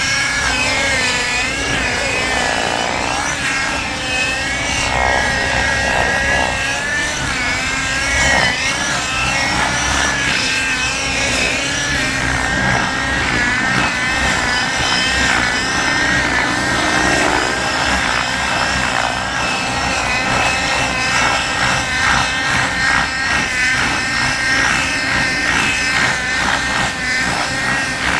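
The KME engine of a radio-controlled model helicopter running in flight, a high, buzzing engine note whose pitch keeps wavering up and down as the helicopter manoeuvres.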